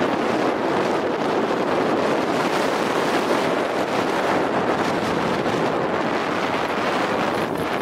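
Steady rushing noise of skiing downhill on groomed snow: wind on the microphone mixed with skis hissing over the corduroy.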